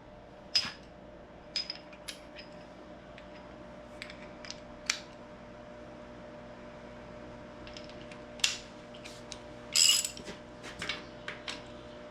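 Scattered sharp metallic clicks and clinks of hand tools being handled: a socket, extension and ratchet fitted together and set on the exhaust manifold nuts of a Farmall A tractor. The loudest cluster comes near the end, over a faint steady hum.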